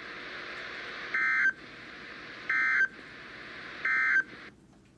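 Emergency Alert System End-of-Message data bursts from NOAA Weather Radio: three short, identical warbling digital bursts about a second and a half apart over steady radio hiss. They signal that the alert message is over.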